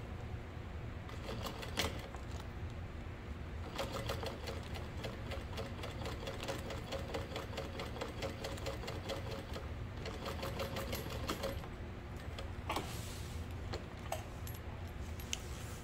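Industrial-style sewing machine stitching a basting seam through layered fabric and zipper tape: a short start, then a steady run of rapid needle clicks from about four seconds in to about eleven, and a few single clicks near the end, over a steady low hum.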